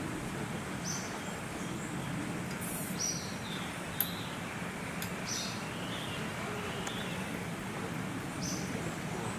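Steady background ambience with a low hum, over which birds give short high chirps every couple of seconds; one sharp click about four seconds in.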